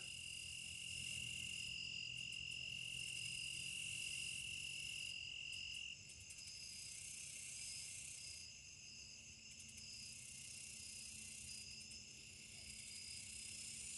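Faint chorus of insects along a creek, steady high-pitched chirring. One high steady note among them stops about six seconds in.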